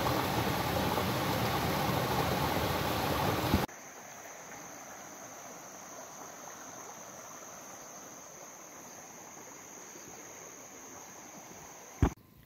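Stream water splashing over rocks into a small rock pool, a steady rush that cuts off suddenly a few seconds in. It gives way to a quieter, steady high-pitched insect drone, with one sharp click near the end.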